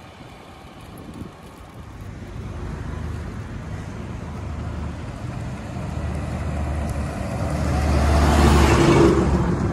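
A heavy goods truck approaching and passing close by, its engine drone and tyre noise growing steadily louder to a peak about eight to nine seconds in, then easing off.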